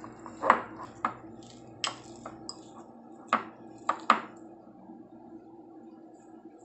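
Metal fork mashing boiled potatoes in a glass bowl, clinking and knocking against the bowl about seven times, then going quieter after about four and a half seconds.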